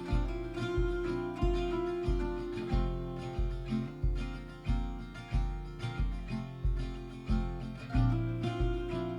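Background music: acoustic guitar over a steady, even bass beat.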